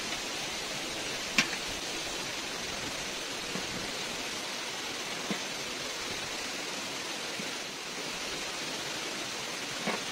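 Steady rush of a small stream running over rocks, with one sharp knock about a second and a half in and a few faint ticks.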